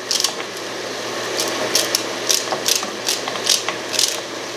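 Fresh celery being cut over a pot, each cut a crisp crunchy snap, about two a second at uneven spacing. Under them is a steady sizzle of chopped vegetables sautéing in butter.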